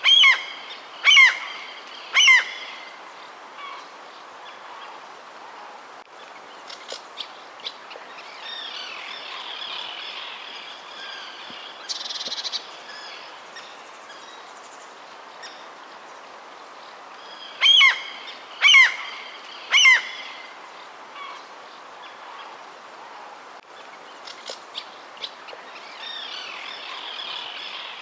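Birds calling outdoors: a loud bird gives three short calls about a second apart, then the same three-call series again about 18 seconds later. Quieter chirping and trilling birdsong goes on between the series.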